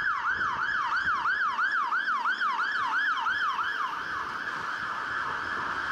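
Fire engine siren sounding a fast yelp, its pitch sweeping up and down about four times a second, then switching to a faster warble that blurs the sweeps together about three and a half seconds in.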